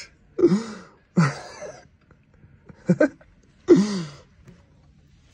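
A man's short wordless vocal exclamations, four in about four seconds, each rising then falling in pitch. They are his reaction to the cold after wading through knee-deep snow in shorts.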